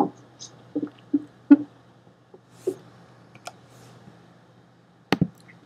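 Scattered light knocks and taps from a hand and pen handling paper on a desk, with a sharper double knock about five seconds in. A low steady hum runs underneath.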